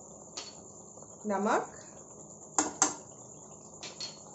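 Chicken cooking in a karahi with a steady high hiss, and a few sharp clicks and taps as spoonfuls of ground spices and salt are added, the loudest two close together just past the middle.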